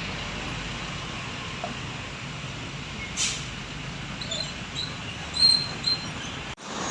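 Steady roadside traffic noise, with a brief hiss about three seconds in and a few short high-pitched squeaks in the second half.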